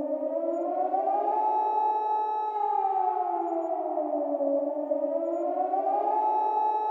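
Emergency warning siren wailing: two tones sounding together rise slowly to a held high note, fall back, and rise again, about one cycle every four and a half seconds.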